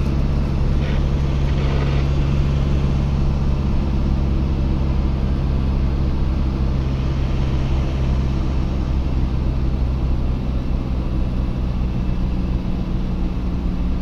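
Truck engine running at a steady cruise with road noise, a constant low hum that holds one pitch throughout.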